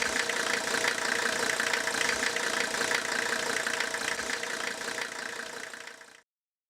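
Mercedes diesel engine idling steadily, fading near the end and cutting off about six seconds in.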